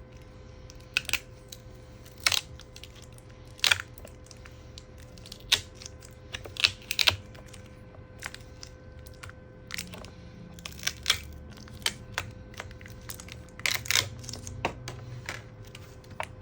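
Hands handling a replacement MacBook Pro battery and small parts: irregular light clicks and taps with some crinkling, the loudest cluster about seven seconds in and another near fourteen seconds. A faint steady hum lies underneath.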